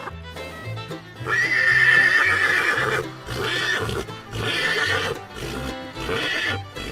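A horse neighing: one long whinny about a second in, followed by three shorter calls, over background music with a steady bass line.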